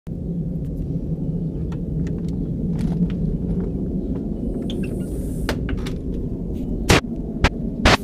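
Low, steady rumble from the sky with a hum in it, of unknown origin; the recordist says it can't be a plane. A few sharp knocks near the end.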